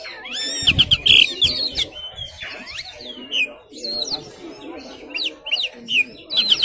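Oriental magpie-robin (kacer) singing in full song: a fast, varied run of whistled notes, trills and sweeping glides, phrase after phrase without a break.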